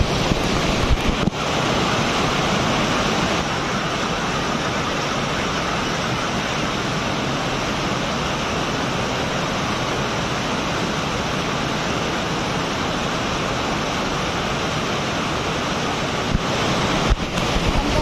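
Small waterfall on a swift stream, water rushing and splashing over rocks in a steady, unbroken rush.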